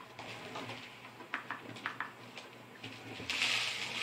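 Small clicks and taps of a brass shotgun shell and gun cotton being handled and packed on a tabletop. About three seconds in, a louder steady rustling hiss begins.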